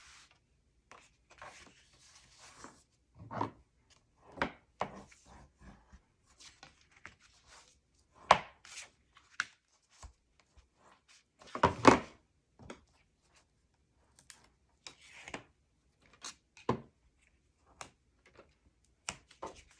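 Cardstock and paper handled on a tabletop: scattered taps, knocks and rustles as a scored paper pocket is fitted and pressed into place, the loudest knocks about 8 and 12 seconds in.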